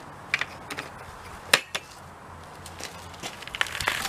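A plastic bucket knocked a few times as it is handled, with one sharp knock loudest. Near the end a quick rattling clatter builds as chunks of gasifier fuel start pouring out of the bucket into the hopper.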